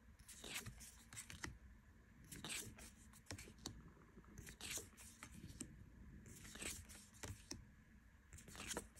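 Tarot cards sliding against one another as they are moved one at a time through a hand-held deck: a soft, faint swish of card stock about every two seconds.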